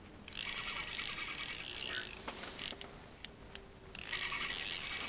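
Spinning reel being cranked fast, its gears giving a steady whirring rattle, in two spells with a short lull about four seconds in: line being wound in on a hooked fish.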